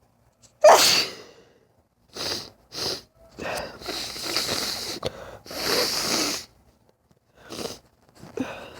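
A woman sneezing in a fit of repeated sneezes. One loud sneeze comes about half a second in, followed by a string of shorter, sharp noisy bursts of breath and sneezing.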